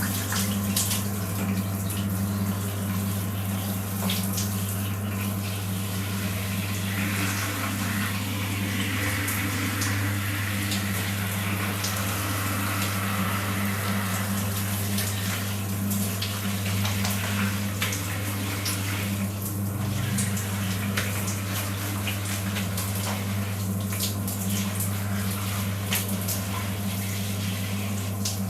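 Water running from a bathroom tap or shower and splashing, with many small splashes, over a steady low electrical hum. The flow sounds fuller for a few seconds partway through.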